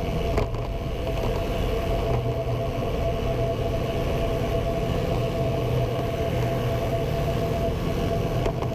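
A vehicle running steadily: an even low hum and rushing noise with one constant whine above it.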